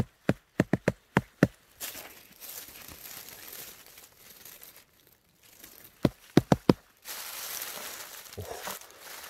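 Quick runs of sharp taps on a big porcino mushroom cap: about eight at the start and five more about six seconds in. Dry leaf litter rustles and crinkles between them as the gloved hand handles the mushroom.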